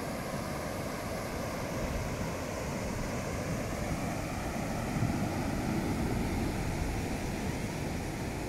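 Heavy ocean surf breaking on the beach, a steady rushing that swells louder about five seconds in, with wind buffeting the microphone.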